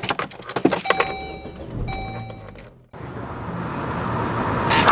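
Car sounds: metallic jingling and clicks with a few ringing tones, and a low running rumble. After a sudden cut about three seconds in, a steady rush of car noise grows louder.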